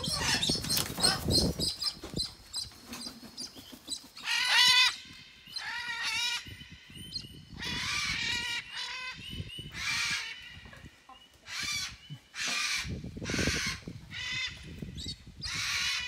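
Large parrots squawking: harsh calls about a second long, repeated every second or two, with some rustling and rumble in the first couple of seconds.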